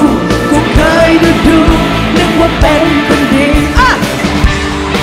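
Live rock band with a woman singing lead: her voice over electric guitar and drums keeping a steady beat.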